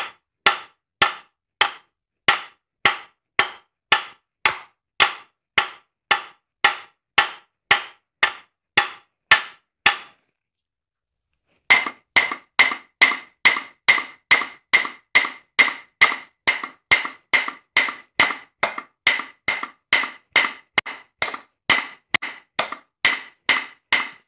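Hammer blows on the stuck crankshaft of a 7.5-ton Copeland semi-hermetic compressor, about two a second for ten seconds. After a short pause comes a faster run of about three a second, each strike with a clear metallic ring. The crankshaft is jammed and does not move under the blows.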